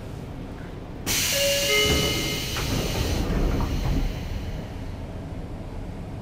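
Sotetsu 8000 series commuter train at a station stop: about a second in, a sudden loud burst of air hiss with a few brief tones, then knocks as the doors close, before departure.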